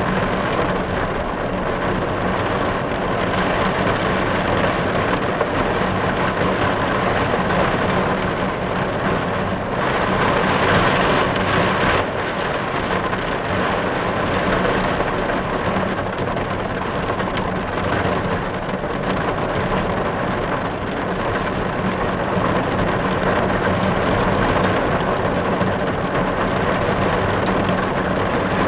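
Steady rain falling on a car's roof and windows, heard from inside the car: a dense, even patter that swells slightly about ten seconds in.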